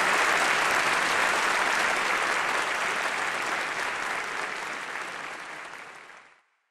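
Theatre audience applauding, dense and steady, gradually fading out and cutting off to silence near the end.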